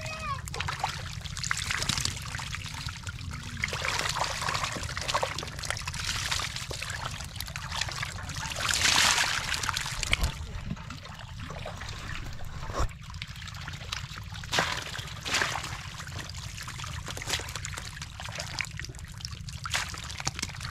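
Wet mud and shallow water sloshing and trickling as metal bowls scoop through a muddy pond bed, with a louder splash about nine seconds in and a few sharp knocks a little later.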